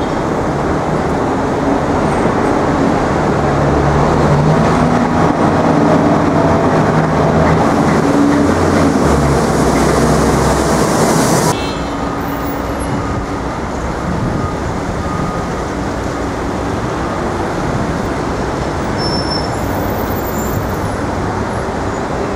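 City street traffic. A large vehicle's engine runs close by, with low engine tones, for about the first half. The sound then cuts off abruptly to quieter, steady traffic noise.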